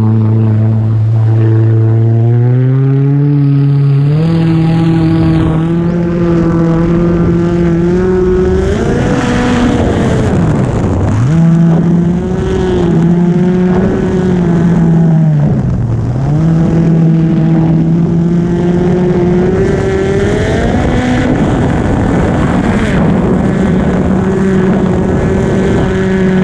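Kawasaki SX-R 1500 stand-up jet ski's four-cylinder four-stroke engine accelerating over the first few seconds, then running at high revs with water spray and wind rushing. The revs dip briefly twice midway and again at the very end as the throttle is eased off and back on.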